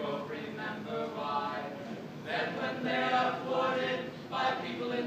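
A small group of voices singing together unaccompanied, in slow phrases with long held notes.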